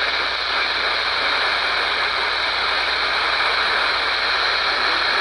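Steady radio static hiss from a weather-radio receiver on a weak NOAA Weather Radio signal, even and unbroken throughout.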